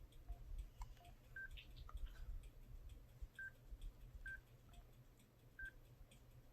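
Kyocera Blade KX424 phone's keypad tones: short, faint beeps at two pitches, about seven over several seconds, as keys are pressed to move through the menus.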